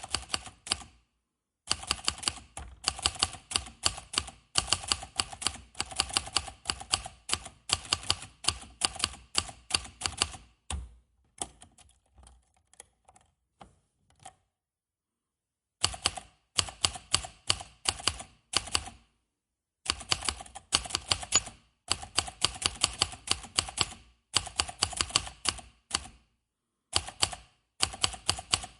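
Manual typewriter being typed on: keys striking in quick runs of sharp clacks, broken by short pauses, with a quieter, sparser patch and then a silent gap of about a second and a half around the middle.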